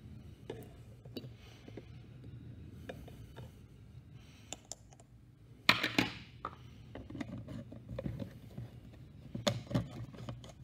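Handling sounds on a bench: small clicks and scrapes of metal tweezers against a plastic jar, lids and glass. There is one sharp knock about six seconds in and a cluster of clacks near the end.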